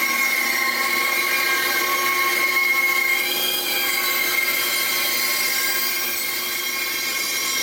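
A Model 14 band saw running and cutting through a thick wooden block along a traced decoy pattern, giving a steady high whine.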